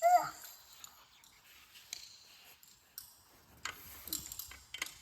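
Wrenches and other metal hand tools clinking and rattling as they are handled, with scattered clicks that come thicker near the end. A brief vocal sound comes at the very start.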